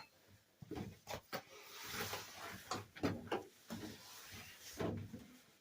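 Scattered, irregular small clicks, knocks and rustles of things being handled and moved; no engine or starter is running.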